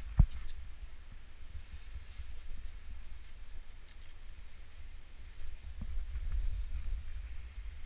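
Low rumble of wind on a helmet-mounted GoPro's microphone, with one sharp knock just after the start and a few faint clicks later on.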